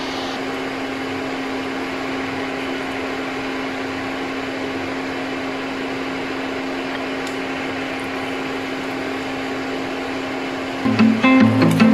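Steady whirring hum of a small motor with a constant low tone. Plucked-string background music comes in about a second before the end.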